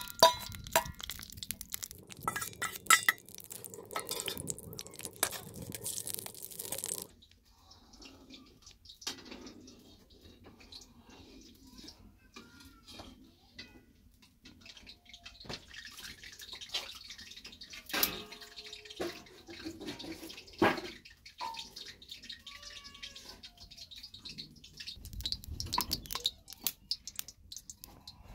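A metal slotted spoon scraping and clinking against a metal plate and wok as solid ghee is knocked into the hot pan, with a sizzle. After a sudden drop in level about seven seconds in, the fat sizzles faintly as it melts, with scattered small clicks and a few short chirps.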